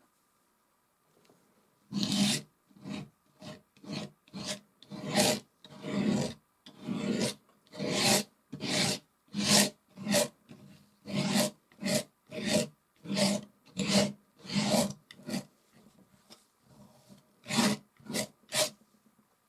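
Metal palette knife scraping oil paint across a textured canvas in short strokes, about two a second, starting about two seconds in, with a brief pause near the end.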